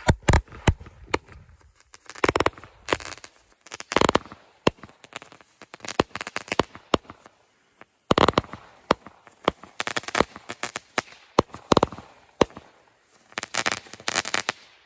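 Consumer fireworks cake firing shot after shot: a long irregular series of sharp shots and mid-air bursts, several of them breaking into clusters of rapid crackles.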